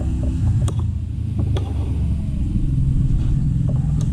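A loud, steady low rumble like an engine running, with a few sharp clinks of a metal spoon and hands against plates.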